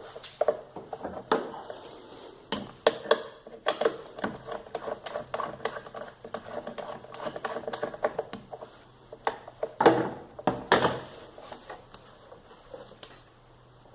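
Irregular clicking, clinking and knocking of metal tools and parts being handled, with a couple of louder knocks about ten seconds in.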